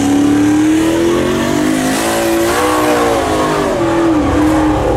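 Car engine accelerating hard, its pitch climbing steadily, with a brief dip near four seconds in before it picks up again.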